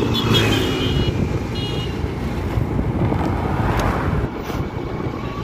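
Wind buffeting the microphone over the steady low rumble of a vehicle travelling along a road.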